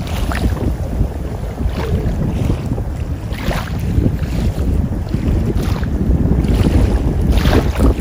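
Wind buffeting the microphone: a loud, steady low rumble with gusts that swell every second or two.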